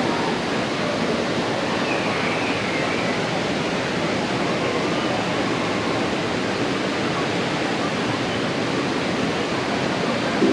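Steady, even rush of moving water.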